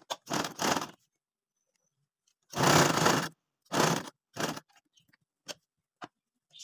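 Short bursts of scraping and rustling as fabric and lace trim are pushed and shifted across a sewing machine bed. There are four main bursts, the longest a little under a second.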